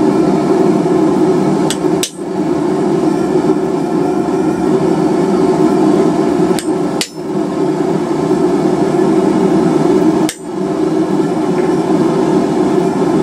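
Hand hammer repeatedly striking a chisel to cut deep lines into a steel bar for an alligator twist pattern. The blows come fast and run together, with short breaks about 2, 7 and 10 seconds in.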